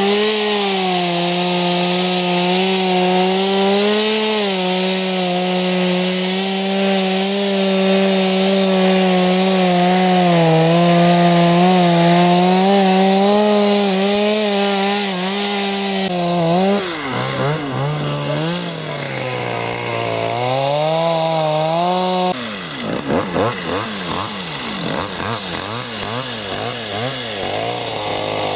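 Two-stroke chainsaw running at high revs, cutting into ice, its engine note holding steady for about sixteen seconds. After that the pitch drops and wavers up and down as the throttle and load change.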